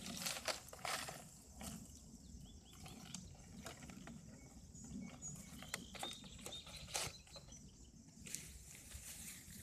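Faint rustling, scraping and light knocks of a small cardboard box being handled and set on top of a wooden post. The loudest clatter comes in the first second and again about seven seconds in.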